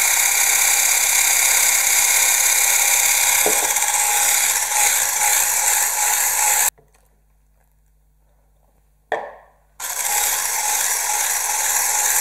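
Electric hand mixer with a single whisk attachment running steadily, beating thin crepe batter in a stainless steel bowl. It cuts out suddenly about six and a half seconds in, a short sound follows in the quiet gap, and the mixer runs again for the last couple of seconds.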